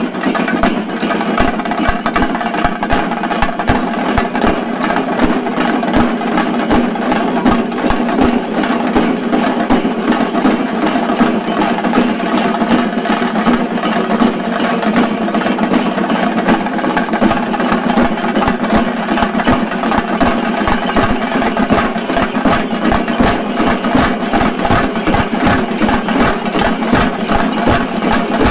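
A group of chenda drums beaten fast with sticks in shinkarimelam style, a dense, loud, unbroken stream of strokes.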